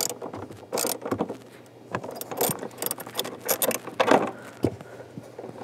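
Socket ratchet on an extension clicking as it loosens the 10 mm bolts that hold a throttle pedal assembly to the car's floor, in irregular runs of sharp clicks with a few metal clinks.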